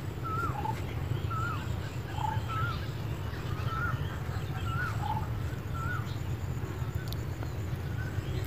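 Birds chirping in the background: short, wavering calls repeated a little more than once a second, over a steady low hum.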